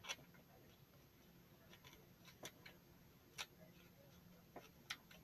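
Faint, irregular snips of scissors cutting small pieces, a few sharp clicks about a second apart.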